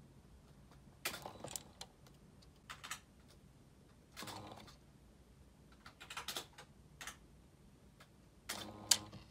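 Brushless motors moving a 3D-printed robot neck through push rods, heard as seven or so short, quiet bursts of motor noise and light clicking, one for each move of the head, the loudest near the end. This is the low running noise of brushless motors, much quieter than brushed servos.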